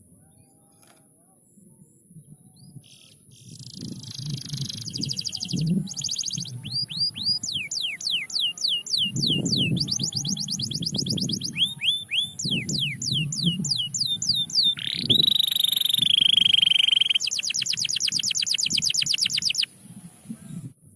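Domestic canary singing in tours: fast repeated trills and runs of quick downward-sweeping notes, then a held whistled note that rises at its start, and a final fast trill. The song begins a few seconds in and stops about a second before the end.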